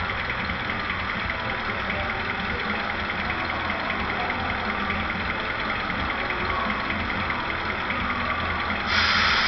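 Diesel engine idling steadily, played by the ESU LokSound sound decoder of an HO-scale Vossloh G2000 diesel locomotive model. A sudden loud hiss starts near the end.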